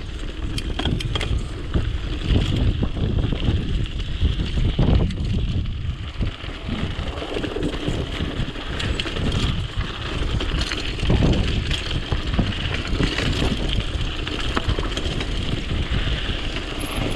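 Wind buffeting an action camera's microphone as a Btwin Rockrider 540S mountain bike rolls fast down a dirt trail, with steady tyre noise and frequent short clicks and rattles from the bike going over bumps.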